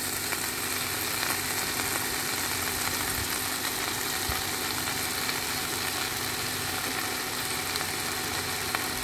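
Freshly washed pak wan (sweet leaf) leaves frying in hot oil with garlic and chili in a pan, a steady sizzle.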